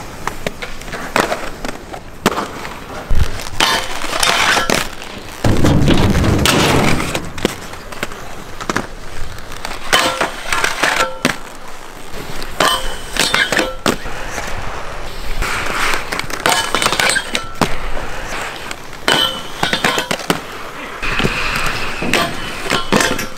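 Aggressive inline skates rolling and scraping on skate park concrete, with many sharp knocks and clacks scattered throughout from landings and tricks.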